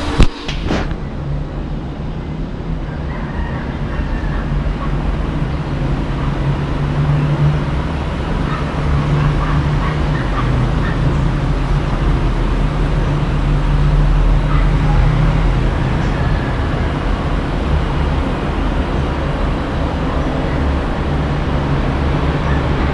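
Steady low rumbling noise with a few faint chirps above it, after a sharp click just after the start.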